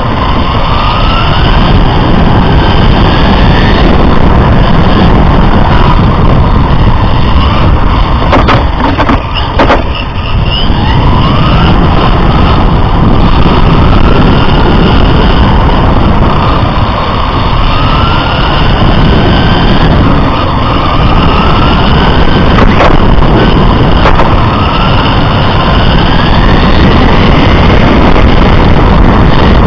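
Radio-controlled touring car heard from its own onboard camera at speed: a loud, constant rumble of tyres on rough asphalt with the motor's whine rising in pitch again and again as the car accelerates out of each corner. Around nine seconds in the rumble dips briefly, with a few sharp clicks.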